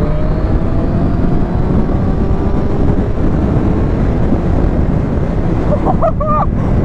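Strong wind noise on the microphone at road speed, over the Triumph Street Triple S A2's 660 cc three-cylinder engine running, its pitch rising slowly for the first few seconds as the bike accelerates past a car.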